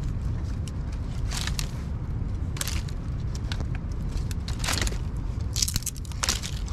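Wind buffeting the microphone as a steady low rumble, with five or six short, sharp hisses or scuffs at irregular intervals of about a second.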